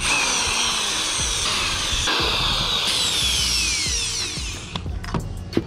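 Corded SKIL electric drill running, backing the screws out of a fish finder mounting bracket. Its whine lasts about four and a half seconds, drops in pitch as it slows, then stops, followed by a few small clicks.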